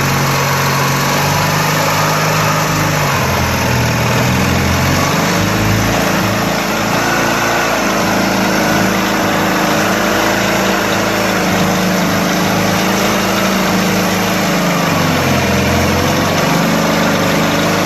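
18-horsepower longtail mud motor pushing a jon boat at speed. The engine revs up about three seconds in and holds high, eases off briefly near the end, then picks up again.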